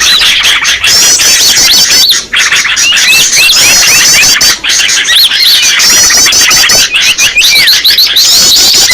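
Bird-lure recording of many small songbirds chirping and twittering over one another. It is a loud, dense chorus of high trills and short sweeping notes, with the same phrases repeating.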